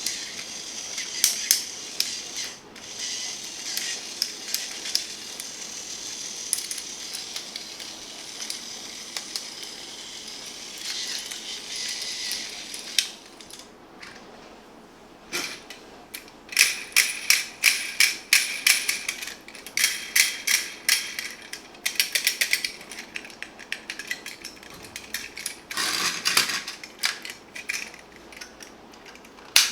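Small plastic and die-cast toys clicking and rattling as they are handled, with a steady whirring hiss through the first half and a run of quick clicks in the second half.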